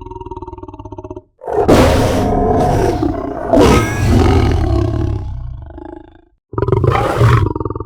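Lion roar sound effects: a low, pulsing growl cuts off about a second in. Then comes a long, loud roar that peaks twice and fades out over about five seconds, and a fresh roar starts near the end.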